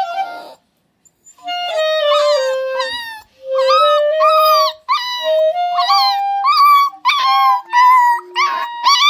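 A puppy howls and cries along with a clarinet. The clarinet plays slow held notes that step up and down, and the dog's wavering howls rise and fall over them. Both stop briefly about a second in, then start again.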